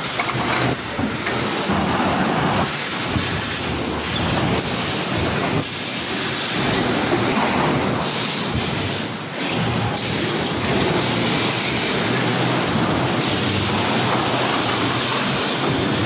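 Steady industrial noise from an automatic EPS 3D panel wire-mesh welding line running: a dense mechanical rush with hiss. It changes abruptly in character a few times.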